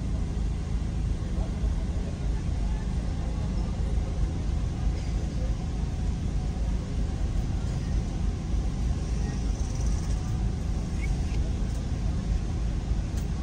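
Steady low rumble of a car heard from inside its cabin, sitting nearly still in heavy street traffic, with faint traffic sounds from outside.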